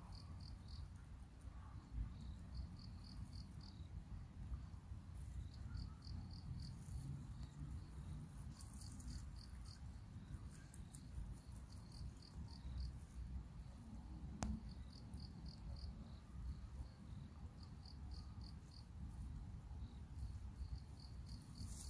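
Crickets chirping: short trains of four or five quick high pulses, repeating every second or two, over a low steady rumble. A few soft clicks come through, the crunch of a rabbit nibbling clover.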